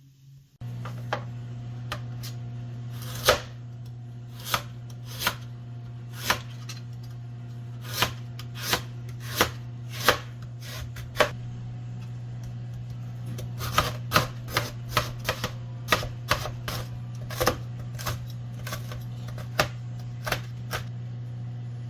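Kitchen knife chopping on a cutting board in irregular single strokes, about one or two a second with a few quick runs, over a steady low hum that starts about half a second in.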